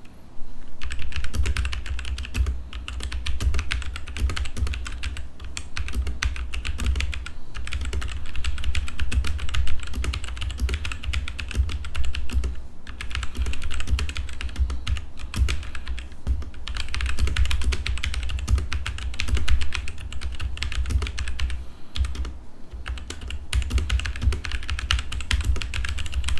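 Typing on a Tecware Phantom RGB full-size mechanical keyboard with Outemu Brown tactile switches: a steady stream of key clicks, broken by a few short pauses.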